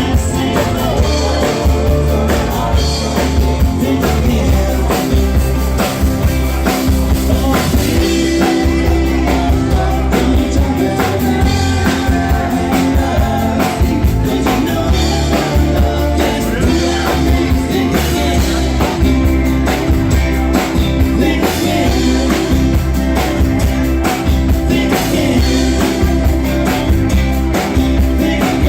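Live rock band playing the closing section of a song, with a steady drum-kit beat and guitar.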